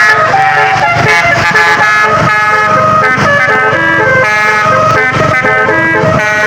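Bus 'telolet' basuri musical horn playing a tune: loud held notes that step quickly from pitch to pitch, several tones sounding together.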